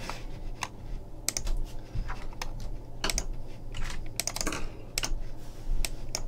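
Computer keyboard and mouse in use: irregular, sharp key taps and clicks, some in quick pairs, over a low, steady electrical hum.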